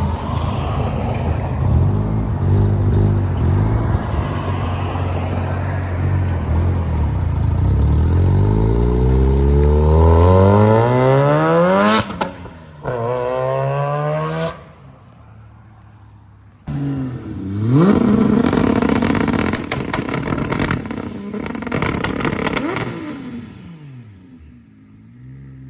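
Car engine under hard acceleration, its pitch climbing steadily for several seconds and then cut off suddenly. After a short quiet gap come more engine revs that rise and fall, then fade.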